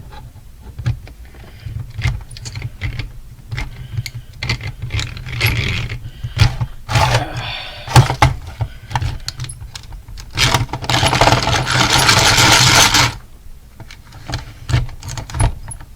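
Handling clicks and knocks as a drill is set against an alarm clock, then the power drill runs loudly for about two seconds while trying to bore through the clock's casing, and stops abruptly.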